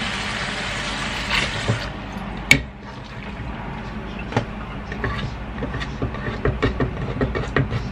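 Kitchen tap running into a metal strainer of water in a stainless steel sink, stopping after about two seconds, followed by one sharp click. Then a run of light taps and knocks as shredded spring onions are scraped off a wooden chopping board into the soaking water.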